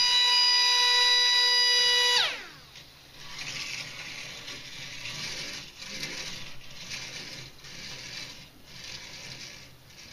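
The K'nex coaster car's small electric propeller motor whining steadily, then cutting off about two seconds in and spinning down with a falling pitch. The plastic car then rattles along the plastic track in waves about once a second, slowly fading.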